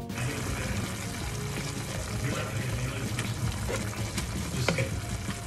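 Ground beef chili sizzling and bubbling in a cast iron skillet while it is stirred with a metal spoon, with a few light clicks of the spoon against the pan.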